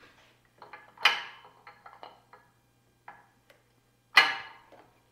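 Metal clanks and rattles from a Yakima HangTight vertical bike rack being handled. Two loud ringing clanks come about a second in and about four seconds in, with lighter clicks and knocks between them.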